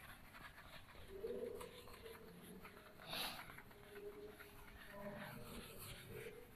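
Faint wiping of a duster across a whiteboard, with a louder swish about three seconds in. A few short, soft low tones sound in the background.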